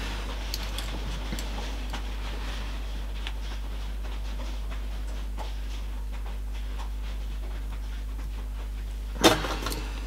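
Steady low electrical hum under faint small clicks and taps as wire ends are handled and tinned with a soldering iron, with a brief loud rush of noise about nine seconds in.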